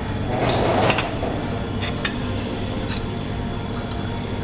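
A few light clinks of metal serving tongs and cutlery against plates and glass dishes over a steady room hum, with a louder burst of clatter about half a second in.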